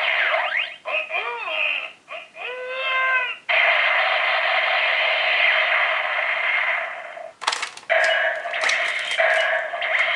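Electronic sound effects and voice calls from the small speaker of a Kyoryuger Gaburevolver sound toy, thin with no bass. Gliding, cry-like calls come first, then a dense steady effect for about four seconds, and a sharp click comes about two-thirds of the way in before the sounds go on.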